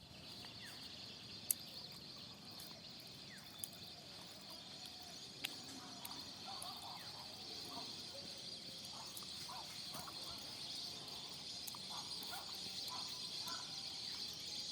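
Faint, steady high-pitched insect chorus, typical of crickets, with scattered short bird calls in the second half and a few sharp clicks in the first few seconds.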